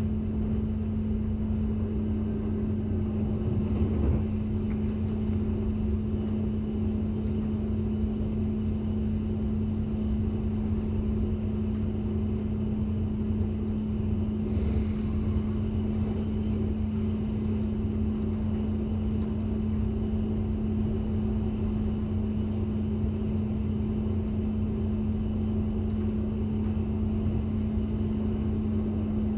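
Diesel passenger train running at speed, heard from inside the carriage: a steady drone and hum with the rumble of the wheels on the track. A brief knock comes about four seconds in, and a short hiss about halfway through.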